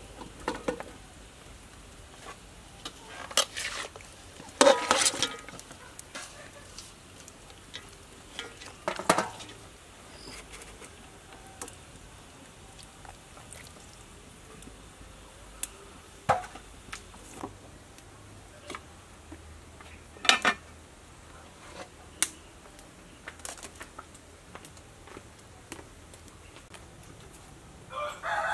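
Scattered knocks and clicks of food pieces being packed into an aluminium cooking pot, with a rooster crowing near the end.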